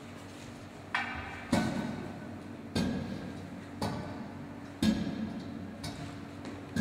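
A slow series of sharp knocks, about one a second, each ringing out briefly in an echoing room over a steady low hum.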